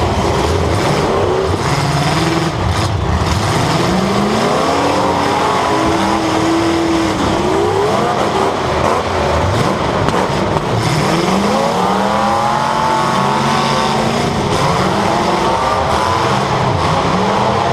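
Demolition derby car engines revving hard and dropping back again and again, several at once at different pitches, loud and continuous, heard from on board one of the cars.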